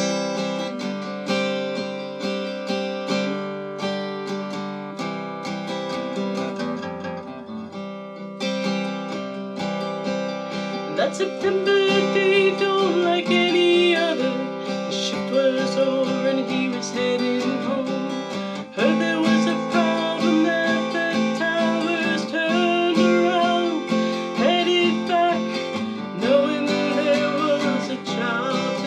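Acoustic guitar strummed and picked in a steady song accompaniment. From about eleven seconds in, a wavering melody line joins above the chords.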